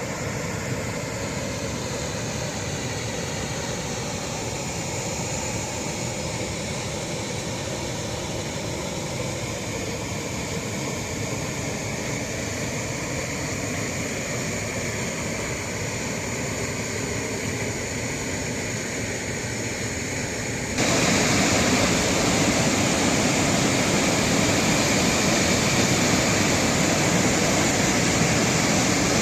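Steady rush of a waterfall, with the drone of an aircraft passing overhead, its pitch slowly dropping, in the first two-thirds. About 21 seconds in the water noise jumps abruptly louder.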